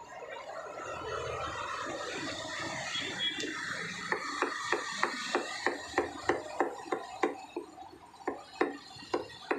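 Butcher's cleaver chopping mutton into mince on a wooden chopping block: quick, even strokes about three a second, starting about four seconds in.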